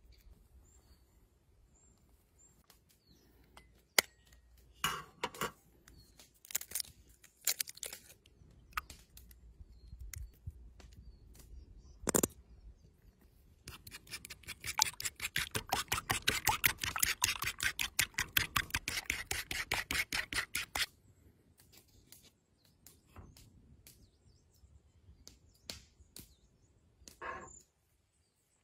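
A fork beating egg with mustard in a bamboo bowl, a rapid run of clicks against the wood lasting about seven seconds, beginning near the middle. Before and after it come scattered taps and light handling sounds of food preparation.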